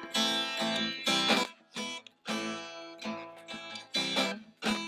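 Acoustic guitar played solo in separate chord strokes with short breaks between them, the instrumental lead-in to a sung ballad.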